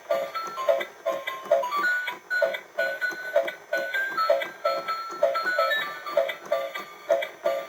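An electronic melody with a repeated croak-like pulse about two to three times a second, as from a musical frog toy.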